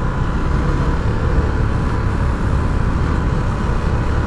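Steady wind rumble buffeting a lapel microphone on a moving motorcycle, with riding and road noise mixed in.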